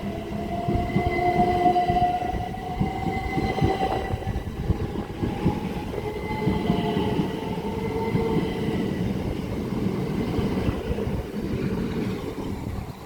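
Southeastern Class 375 Electrostar electric multiple unit moving along the platform, with a continuous rumble of wheels on rail and a motor whine that rises slowly in pitch over the first nine seconds or so.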